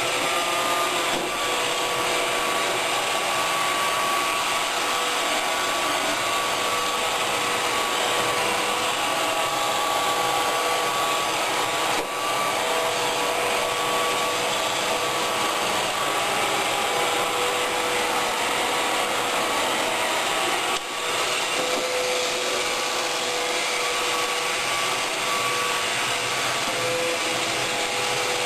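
iRobot Roomba 530 robot vacuum running as it cleans the floor: a steady whirring motor noise with a thin held whine on top.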